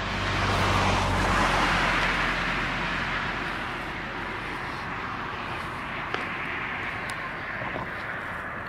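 A car passing on the road: tyre and engine noise that swells over the first couple of seconds and then fades to a steady lower hiss.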